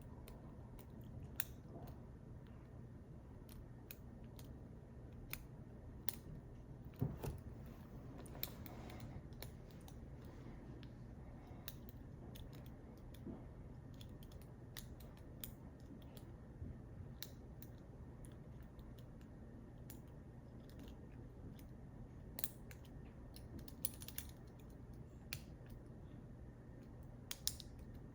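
Lock pick and tension wrench working the pin stacks of a PacLock 90A-Pro padlock: faint, irregular metallic clicks and ticks as pins are picked, spread through the whole stretch, a few louder ones around seven, twenty-two and twenty-seven seconds in.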